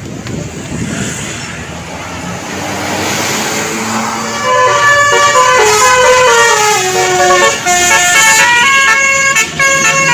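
Noise of an approaching bus grows, then about four seconds in a bus's Basuri telolet horn plays a loud multi-note tune in quick stepped tones, falling and then rising.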